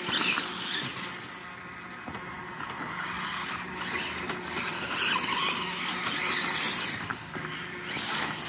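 Electric motor of a Reely radio-controlled dirt bike whining in surges as it is driven on a gravel lane, with its tyres crunching and skidding on the grit.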